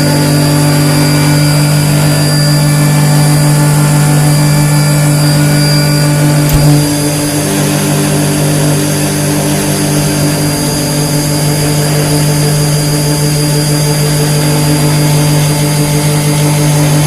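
Industrial machine running steadily with a strong, even hum and a brief knock about six and a half seconds in. It is offered as an example of an abnormal, unbalanced machine sound that points to damage in some part.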